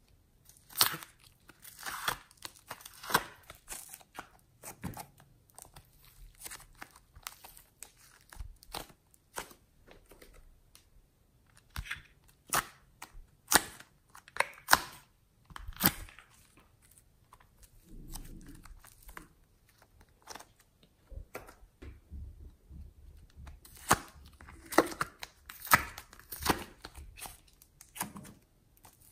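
Soft foam clay being pried and torn out of a clear plastic tray by hand: irregular crackly tearing and crinkling, coming in bunches with quieter gaps between.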